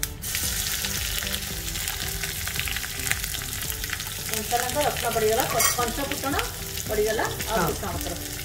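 Garlic and green chillies sizzling and crackling in hot oil in a small tempering pan on a gas burner. The sizzle starts suddenly, at once, as they go into the oil.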